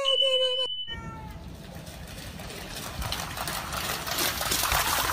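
A husky's drawn-out, wavering howl-whine that cuts off just under a second in. It is followed by a rushing noise that grows louder toward the end.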